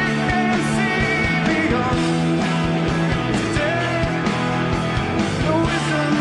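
Live rock band playing: electric guitars, bass and drums with a steady beat.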